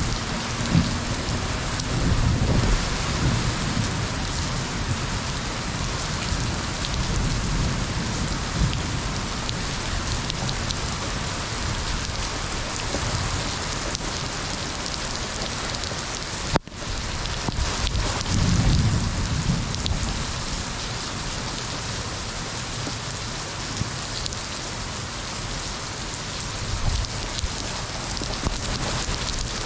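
Steady heavy rain with low rolls of thunder, one a couple of seconds in and another just past halfway. The sound drops out for a split second just before the second roll.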